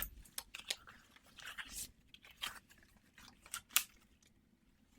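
Scissors opening and closing close to the microphone: a run of crisp, irregular snips and clicks, with one sharper click near the end before they stop.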